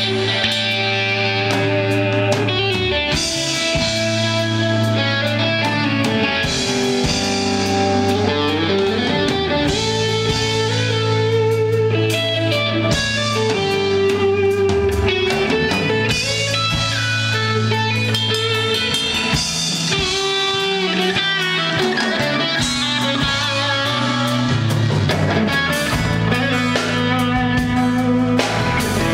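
Live rock band playing an instrumental break: an electric guitar lead over strummed acoustic guitar, electric bass and drum kit.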